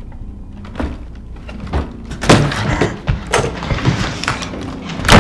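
Knocks and thuds against a wooden door, several separate blows, the heaviest a little over two seconds in and again at the very end, over a low steady rumble.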